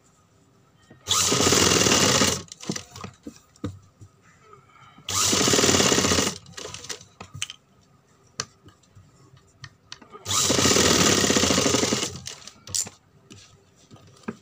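Industrial sewing machine running in three short bursts of stitching, each about a second long, with small clicks and fabric rustles between them as the cloth is repositioned.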